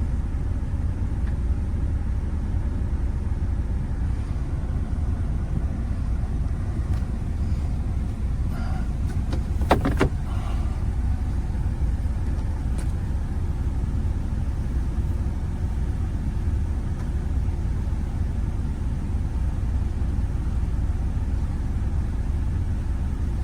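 Steady low rumble of a car heard from inside the cabin, with a few sharp clicks about ten seconds in.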